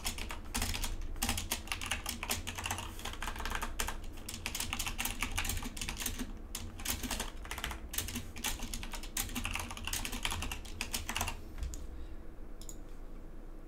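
Typing on a computer keyboard: a fast, irregular run of key clicks that stops about two seconds before the end, with one more single click after it.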